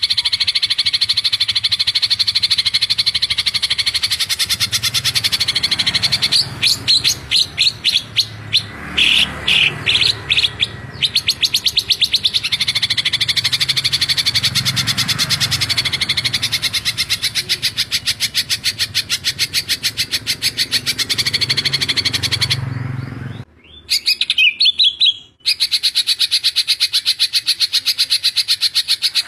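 Cucak ijo, a green leafbird, singing its dense 'tembakan rapat' song: a fast, tightly repeated trill of high notes. The trill breaks into short separate bursts a few seconds in and cuts out briefly near the end before going on.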